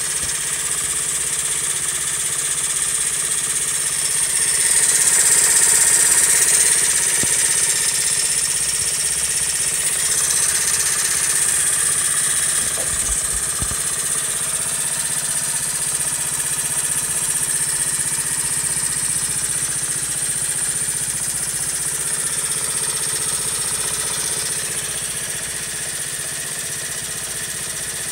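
Honda Monkey's single-cylinder four-stroke engine idling steadily with a high-pitched whine over the engine note, an abnormal noise that showed up after its first ride since being assembled. The revs rise slightly about five seconds in, then settle.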